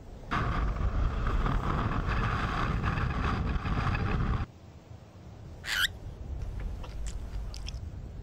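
Wind rushing over a camera carried on a flying golden eagle's back for about four seconds, cutting off abruptly. Then one short, sharp, high call from a collared pika, followed by a few faint high chirps.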